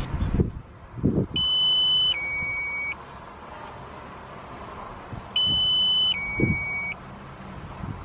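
Two-tone electronic alert, a higher beep followed by a lower one, each under a second long, sounding twice about four seconds apart: the DJI Phantom 4 controller's low-battery warning, which precedes an automatic return to home.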